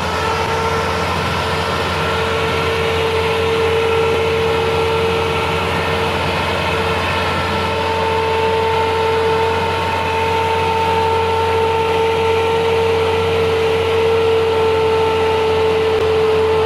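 Massey Ferguson 375 tractor's four-cylinder diesel engine running steadily under heavy load as it tows a loaded sugarcane trolley, a deep drone with a steady high whine over it.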